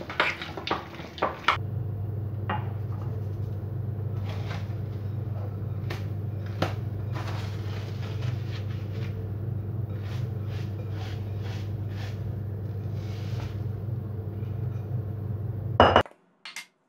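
Metal fork clinking and scraping against a glass bowl while stirring a soft cheese filling, for about the first second and a half. After that a steady low hum runs underneath scattered light clicks and crinkles as plastic cling film is peeled off a glass bowl of dough. There is a louder knock near the end.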